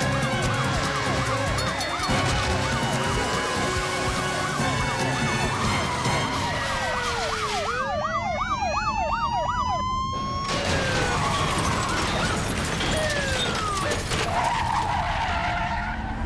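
Several police car sirens wailing at once over car engine noise and action music. About eight seconds in, the din drops away for a couple of seconds to one fast-warbling siren and a rising whine, then comes back.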